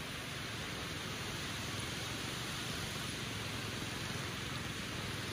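Steady rushing noise of surf breaking along a sandy beach, mixed with wind buffeting the microphone.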